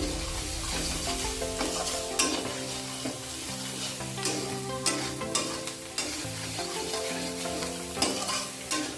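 Garlic, green chilli and onion frying in oil in a kadai, sizzling steadily, with a spatula stirring and scraping against the pan every second or so.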